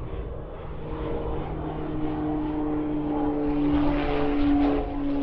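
Twin-turboprop aircraft landing: a steady propeller and engine hum with a few held tones over a rumble. It grows louder as the plane comes closer, and the tones sink slightly in pitch near the end.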